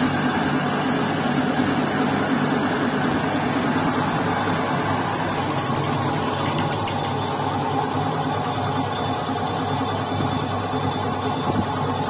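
Metal lathe running steadily with an even motor and gearbox hum while a cutting tool turns the hub of a spoked motorcycle wheel.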